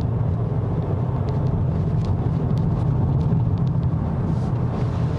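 Steady low rumble of road, tyre and engine noise inside the cabin of a Volkswagen Golf TDI diesel driving at an even pace. The diesel is turning at low revs, under 2,000 rpm, and is quiet beneath the road noise.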